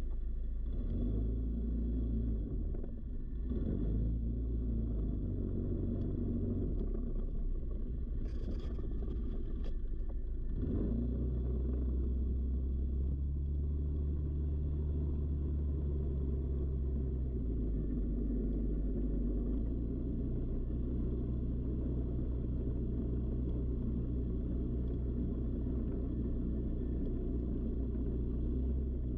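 ATV engine running steadily while riding over a gravel road, with rumble from tyres and wind. The engine note shifts up and down a little as speed changes. A brief higher hiss or rattle comes about eight to ten seconds in.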